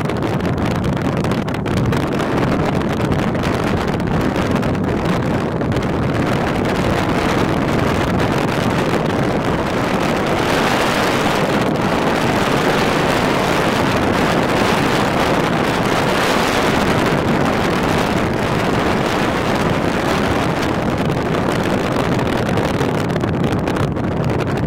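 Strong wind blowing across the microphone, a steady loud rush that grows stronger for a while in the middle.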